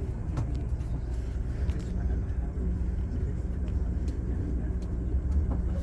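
Cabin noise inside a Haramain high-speed train under way: a steady low rumble with a few light clicks.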